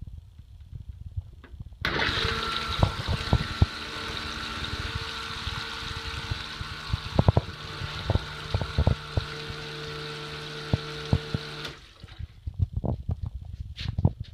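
1968 Monomatic Model A recirculating toilet flushing. Its electric pump starts with a steady hum about two seconds in and swirls the recirculated flush liquid around the bowl for about ten seconds, then cuts off suddenly. Low knocks and thumps come before, during and after the flush.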